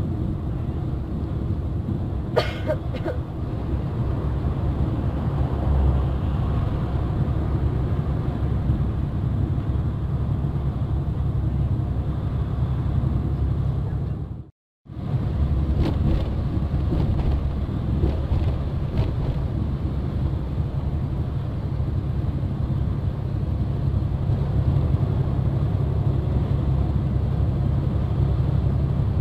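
Steady low rumble of engine and road noise heard from inside a large vehicle cruising on a highway, with a sharp click about two and a half seconds in. The sound cuts out completely for a moment about halfway through.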